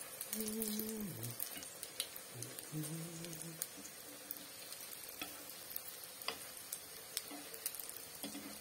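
Zucchini fritters sizzling in hot oil in a frying pan, with a few light clicks of a fork against the pan as they are checked and turned. A short low hum sounds twice in the first few seconds.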